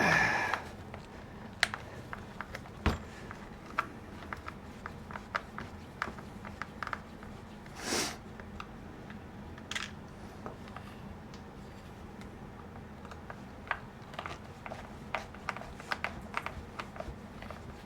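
Scattered small clicks and taps of hand tools and small metal parts being handled while a chainsaw carburetor is taken apart, with a brief louder rustle about eight seconds in.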